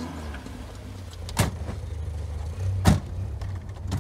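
Car running with a steady low drone heard from inside the cabin, with two sharp knocks about a second and a half apart.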